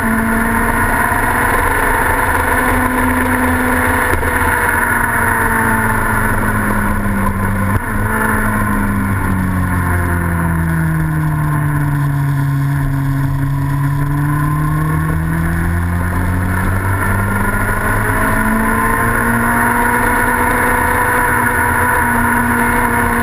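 Racing sidecar outfit's engine running on track, picked up by an onboard camera along with rushing wind. About halfway through, the engine note falls slowly and then climbs back up.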